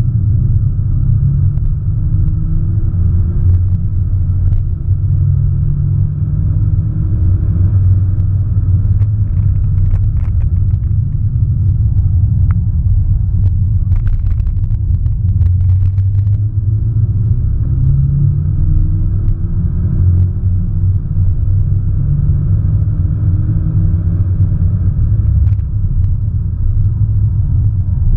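Inside the cabin of an Audi S1 Sportback at track pace: a heavy, steady rumble of engine and road noise from its 2.0-litre turbocharged four-cylinder, with faint engine notes rising again and again as it pulls through the gears, and a few short knocks in the middle.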